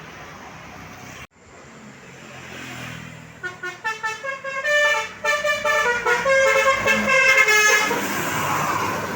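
A tour bus's 'telolet' basuri musical air horn playing a tune, first quick short toots and then longer notes stepping up and down in pitch, over traffic noise. Engine and road noise swell near the end as the horn stops.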